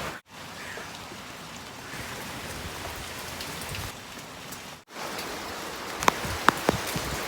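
Heavy rain falling, a steady hiss. Near the end a few sharp clicks and knocks stand out over it.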